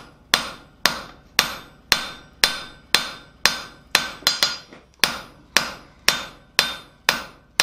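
Hand hammer striking a hot steel bar on an anvil, about two blows a second in a steady rhythm, each blow ringing on briefly. The smith is drawing down the end of a small mortice drift.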